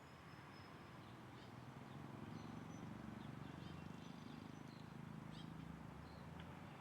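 Faint birds chirping: short, scattered high notes over a low steady background rumble that swells slightly in the middle.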